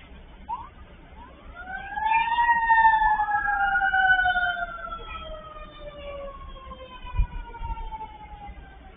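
Police car sirens wailing: the pitch rises and then slowly falls over several seconds, and a second wail overlaps the first. A short low thump comes near the end.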